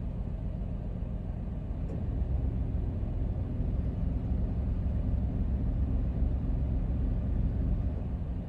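Steady low rumble of a moving vehicle, even throughout with no distinct events.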